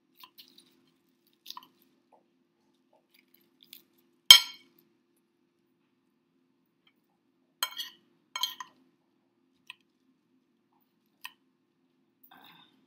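Scattered small clicks and clinks of objects being handled, with long gaps between them. The loudest is a single sharp click about four seconds in, and there are two short rattly clusters a little after eight seconds.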